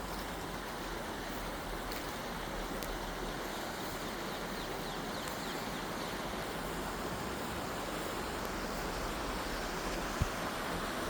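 Steady rushing of a small urban brook in spate, swollen high on its banks after heavy rain. A brief low thump near the end.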